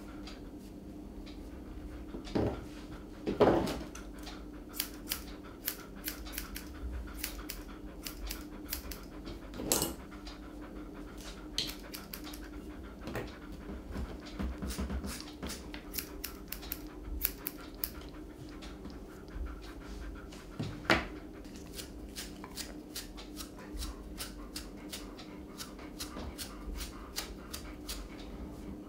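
An Airedale terrier breathing and snuffling close to the microphone, with a few louder sniffs, over a scatter of short sharp clicks throughout.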